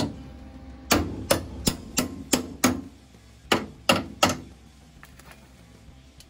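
Claw hammer striking the welded steel rock slider on a Willys Jeep: nine sharp metallic blows, a quick run of six and then, after a short pause, three more.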